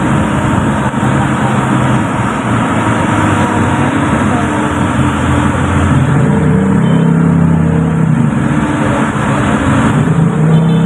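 Engine and road noise heard from inside a moving vehicle, loud and steady, with an engine note that rises and strengthens about six seconds in and again near the end.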